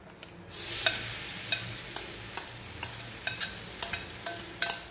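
Spaghetti-and-semolina batter sizzling as it is poured onto a hot cast-iron dosa tawa. The hiss starts about half a second in, with frequent sharp crackles.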